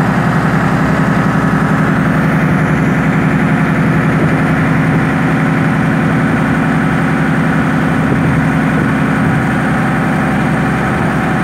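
Motor launch's engine running steadily and loud, with an even, fast pulse.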